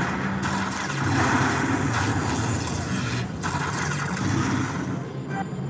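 Lightning Link Tiki Fire slot machine playing its win-tally sound effects, a dense, continuous electronic rumble, as the bonus fireball values are counted into the win meter.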